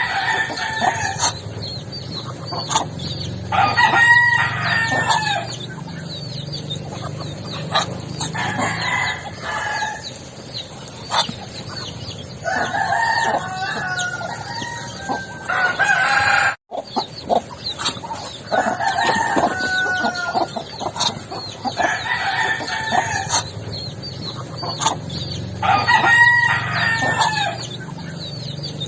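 Backyard chickens: roosters crowing every few seconds, with hens clucking between the crows. The sound drops out briefly about halfway through.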